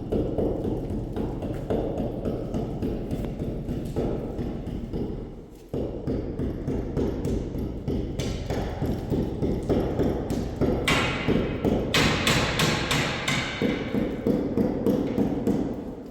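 A fast, continuous run of repeated thumps and taps, several a second, with sharper knocks in the second half; it fades out at the end.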